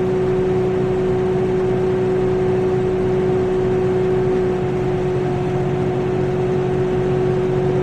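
A loud, steady mechanical hum holding one constant pitch, with a slight drop in level about four and a half seconds in.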